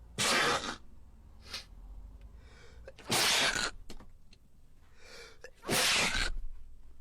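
A person sneezing three times, loud and explosive, about two and a half to three seconds apart, with faint short breaths in between.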